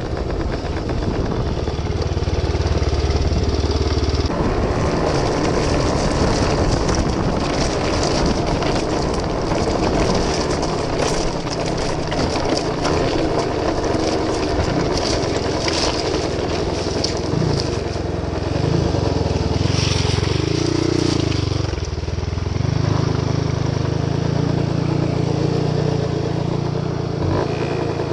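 1973 Suzuki RV75's small two-stroke single-cylinder engine running as the bike is ridden, its note shifting with the throttle, with stones crunching under the tyres on river gravel.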